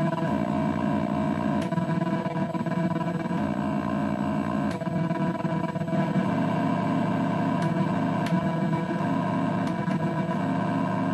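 Circuit-bent Pikachu plush doll's sound chip, run through a homemade effects box and an amplifier: a continuous glitchy electronic drone of several stacked, stuttering tones, with a few faint sharp clicks.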